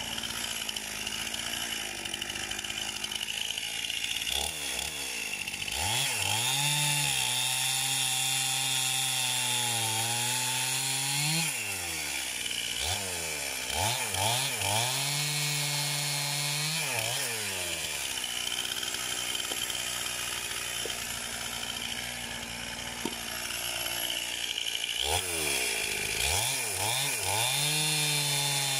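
Two-stroke petrol chainsaw cutting through firewood logs: it revs up and holds at high revs through three cuts, dropping back toward idle between them.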